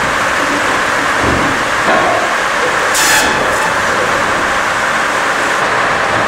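Log profiling line of a sawmill running under load: chipper heads and saw chipping and cutting a log as it feeds through, a loud, steady rushing machine noise with a brief sharp hiss about three seconds in.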